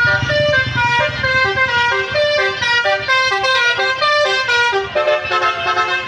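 Tour bus's telolet (basuri) musical horn playing a quick melody, note after note, over the low rumble of the bus's diesel engine.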